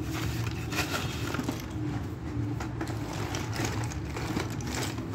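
Thick slate pencils clicking and rattling against one another as a hand stirs through a heap of them, in irregular clusters over a steady low hum.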